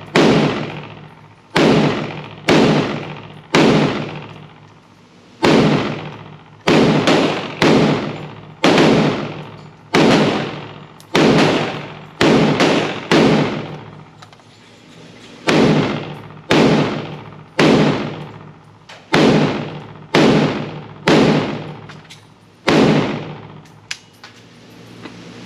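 IWI Galil ACE pistol in 7.62x51 NATO (.308) fired semi-automatically, about twenty single shots at roughly one a second with a few short pauses, each a sharp loud crack with a long echoing decay in an indoor range. A small sharp tick follows near the end.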